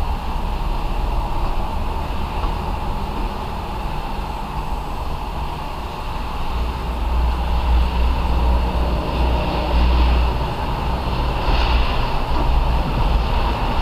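Steady low rumble with a constant hum, machine-like, growing a little louder in the second half.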